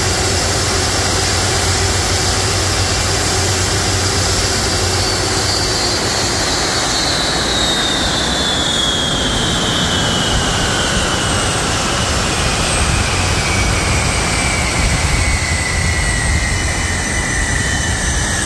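Boeing 747-400 Freighter's jet engines running close by, a steady rumble with a whine that falls steadily in pitch from about five seconds in: the engines spooling down once the aircraft has stopped at its stand.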